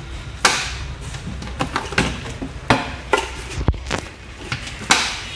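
A series of sharp plastic knocks and clicks, about six spread over the few seconds, from a Walton P 105 mini rice cooker's plastic lid being handled and opened and its steamer tray and pot moved about inside.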